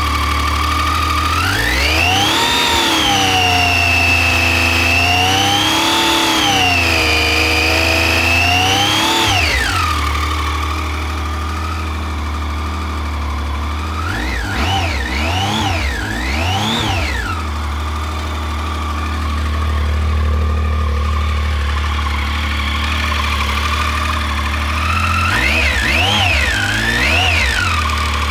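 2010 Triumph Street Triple R's 675 cc inline-three engine idling and being revved, with a whirring whine that rises and falls with engine speed. The revs are held up for several seconds near the start, then blipped a few times in the middle and again near the end. The whine came from a burnt connector between the stator and the regulator/rectifier.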